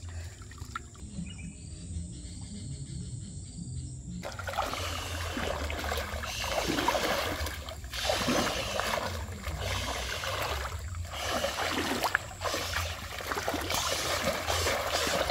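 River water splashing and sloshing around someone wading in the shallows to catch fish. It is muffled and low for about the first four seconds, then clearer, with irregular splashes.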